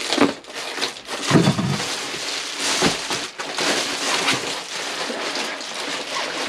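Crinkling and rustling of foil-faced thermowrap insulation being handled and pressed into place, an uneven crackle with a few sharper crackles.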